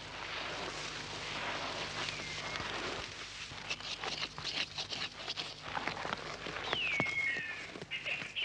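Dry grass and brittle stalks rustling, crackling and snapping as the roots of a Tephrosia rosea plant are dug out of dry ground and pulled up by hand. A bird gives a falling whistle now and then, clearest just before the end.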